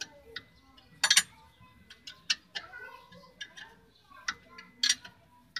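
Steel wrench clinking against a nut and bolt on a vehicle's lower suspension arm as it is worked. The clicks are sharp, metallic and irregular, loudest in a cluster about a second in and again near five seconds.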